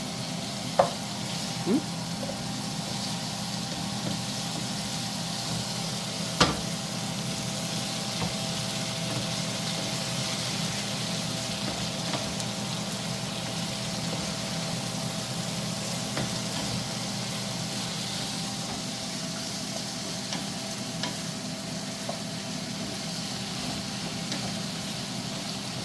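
Chicken curry frying in a pan: a steady sizzling hiss over a low, steady hum. A few sharp knocks come early on, the loudest about six seconds in.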